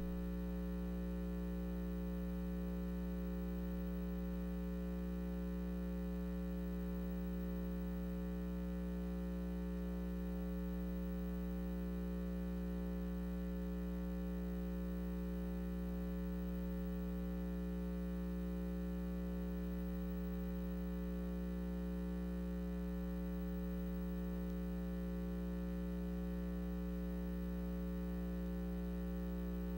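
Steady low electronic hum made of several held tones, with no change in pitch or level.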